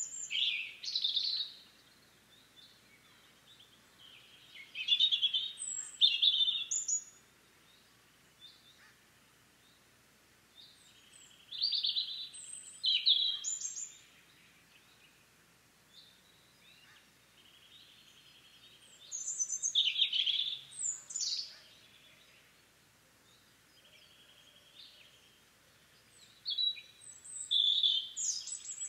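European robin singing: five short phrases of high, varied notes, each about two seconds long, separated by pauses of about five seconds. Each phrase is led in by a faint, steady high note.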